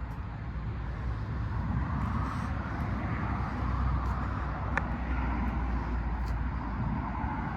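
Steady low rumble of road traffic outdoors, with a faint click a little under five seconds in.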